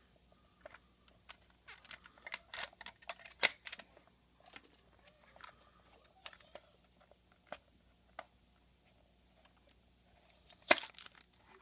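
Clear plastic case of a TIG torch accessory kit being handled and pried open: scattered plastic clicks and crackles, with one sharp click near the end.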